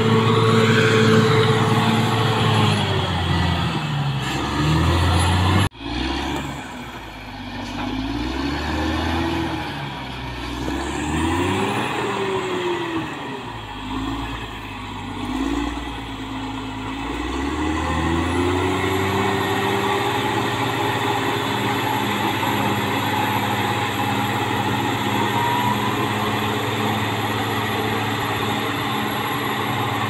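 Caterpillar crawler bulldozer's diesel engine running under load while pushing earth, its pitch dipping and climbing several times in the middle, then holding steady for the last third. There is a sudden break about six seconds in.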